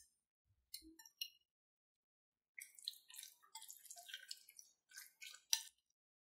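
Raw chicken pieces and wet marinade being handled in a glass bowl: a few light clicks, then about three seconds of faint wet, sticky sounds.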